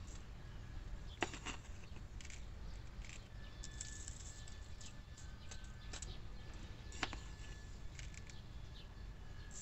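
Fine sandy soil pattering and trickling as it is tipped from a metal garden trowel onto seeded plastic cups, with the trowel scraping in the soil. Two sharp clicks, about a second in and about seven seconds in.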